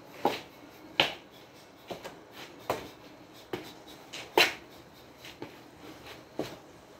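Finger snaps: about eight sharp, single snaps at an uneven pace of roughly one a second, with quiet between them.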